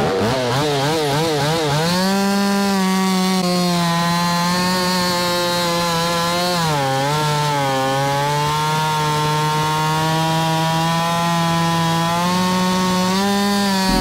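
Stihl 029 two-stroke chainsaw: the throttle is blipped rapidly up and down for about two seconds, then held wide open as the chain cuts into a large white oak log. The engine note sags briefly under load about seven seconds in, then climbs back and holds steady.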